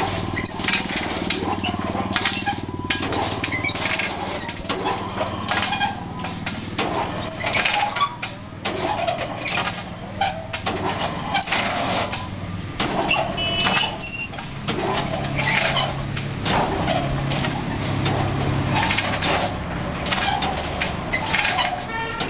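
Belt-driven fence-making machine running, with a steady low motor hum under continuous irregular clattering and knocking of its moving parts.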